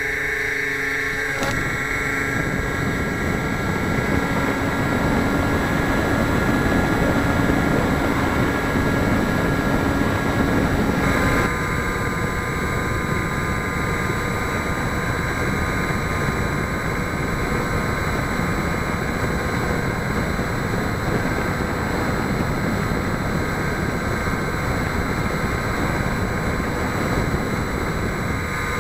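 Motor and pusher propeller of a small twin-boom RC plane running in flight, with air rushing over an onboard keychain camera. A steady whine sits over the rush, and its pitch shifts about a second and a half in and again about eleven seconds in.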